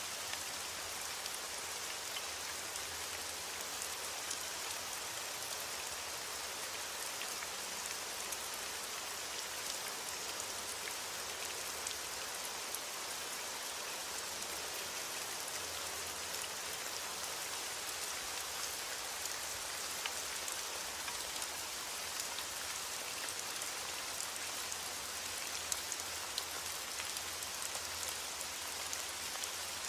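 Heavy rain falling steadily on a window, a dense even hiss with many small sharp ticks; a few louder ticks come near the end.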